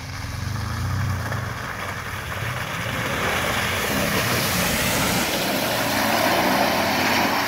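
Toyota Tundra pickup's engine running as it drives through deep mud. Mud and water spray off the tyres, and a rushing sound swells from about halfway through as the truck passes close.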